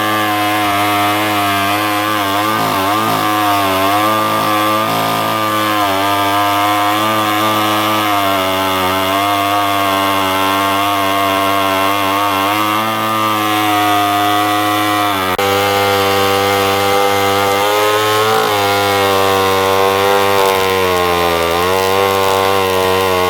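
Chainsaw running hard through wood, its engine pitch dipping and recovering several times as it bogs in the cut.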